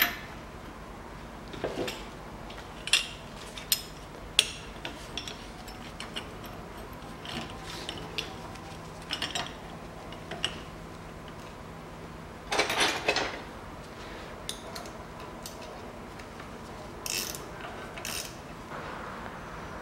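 Ratchet wrench clicking in short, uneven runs as the top nut of a car's front strut is tightened onto the strut mount, with a few metal clinks from the tools.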